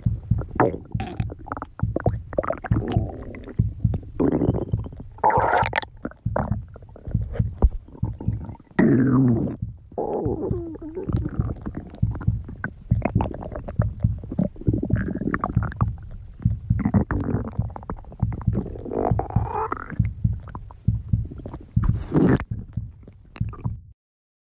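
A person's stomach growling continuously: a fast, irregular run of short pops mixed with growls that slide up and down in pitch. It cuts off suddenly near the end.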